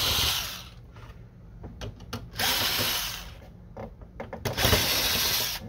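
Cordless drill/driver running in three short bursts, backing out the three screws that hold a printer's printhead, with light clicks between the bursts.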